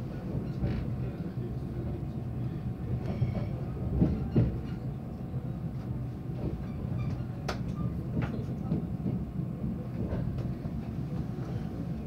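Korail Mugunghwa-ho passenger train running at speed, heard from inside the carriage: a steady low rumble with a few sharp knocks of the wheels over rail joints.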